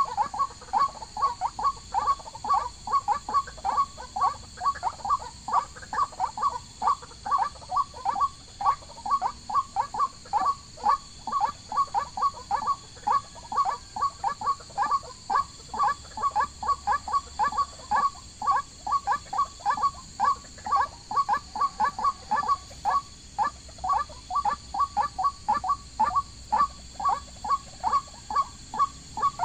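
An animal calling over and over: short, even calls repeated about three a second without a break.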